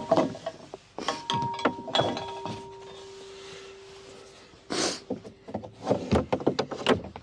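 Irregular knocks, clinks and rubbing of boat gear being handled while a rowing boat is rigged, with a cluster of quick knocks near the end. A steady tone holds for about three seconds in the middle.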